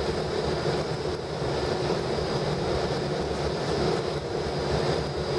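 Cabin noise inside a moving airport apron bus: a steady engine and road rumble with a constant high-pitched whine above it.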